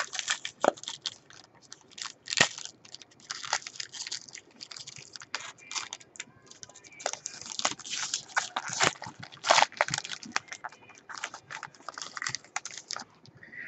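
Foil wrapper of a 2012 Panini Prime Signatures football card pack crinkling and tearing as it is opened by hand: a dense, irregular run of crackles and rustles.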